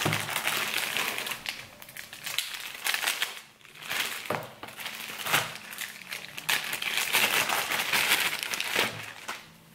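Clear plastic packaging bags crinkling and rustling on and off as packaged hair bundles are handled and held up.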